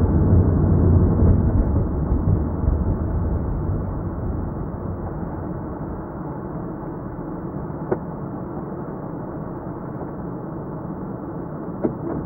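Car cabin noise as the car slows to a stop: engine and tyre noise fade over the first few seconds, then settle to a low, steady idle while it stands still. Two short clicks come about 8 s and 12 s in.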